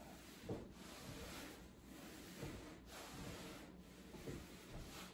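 Faint breathing: a man's audible breaths during a breathing drill, with a soft low bump about half a second in.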